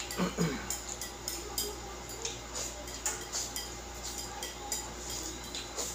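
Eating sounds: a utensil clicking and scraping irregularly on a plate as pancit canton noodles are shovelled from the plate into the mouth, with a short mouth sound near the start.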